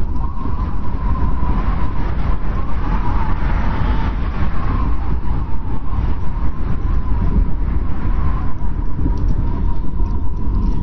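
Strong wind blowing steadily in a snowstorm: a deep rumble with a thin whistling note held through it, swelling slightly midway.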